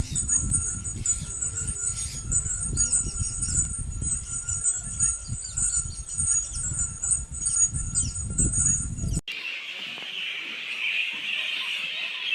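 Bats squeaking: a dense run of rapid, very high-pitched chirps and twitters over a low rumble. It cuts off abruptly about nine seconds in, switching to a different recording of a steady, high hiss-like chatter.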